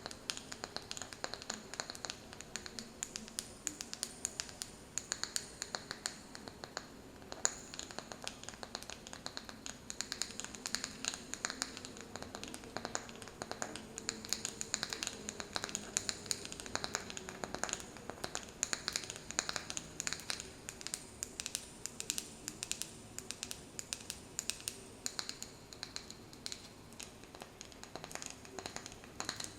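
Fingernails tapping and scratching on a wooden candle lid: a dense, irregular run of quick, light, crisp taps.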